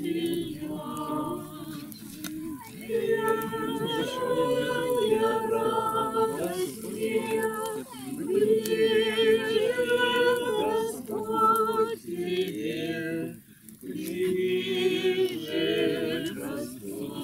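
A group of voices singing a song together without instruments, in phrases of held, wavering notes, with a short break about thirteen seconds in.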